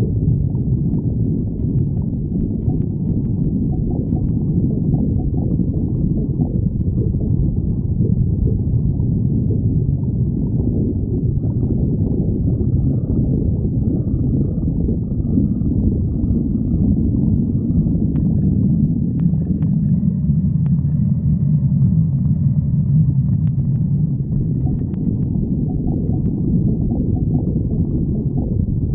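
Human stomach growling and gurgling: a continuous low rumble, with faint higher squeaky gurgles in the middle.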